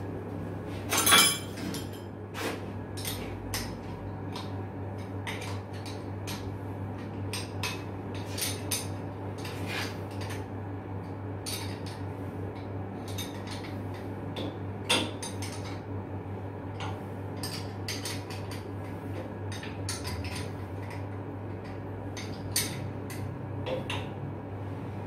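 Metal hand tools and parts clinking and knocking irregularly against the bolted flange of a fire-pump valve during a leak repair, with the sharpest knock about a second in. A steady low hum runs underneath.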